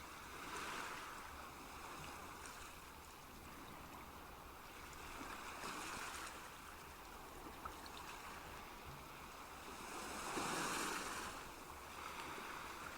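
Gentle moving water in a nature-sound recording, a soft rushing that swells and eases every few seconds.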